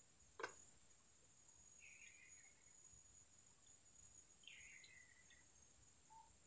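Faint, steady high-pitched drone of insects, with a single click about half a second in and two short falling chirps, one about two seconds in and one about four and a half seconds in.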